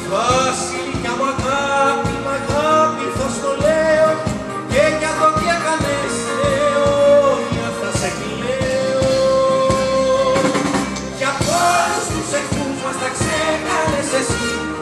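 A plucked-string orchestra of bouzoukia, mandolins and guitars strumming a steady beat, with a woman singing a slow held melody into a microphone over it.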